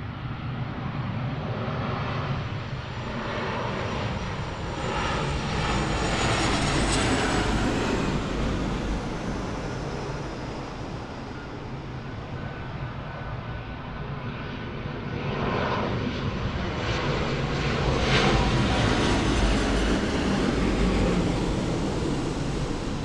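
Airliner engines on landing approach, swelling twice as aircraft pass close and then fading, with a high whine at each loudest moment.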